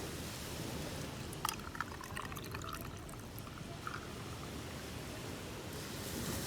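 Liquid being poured, with a few light clicks about one and a half seconds in and small gurgles after them.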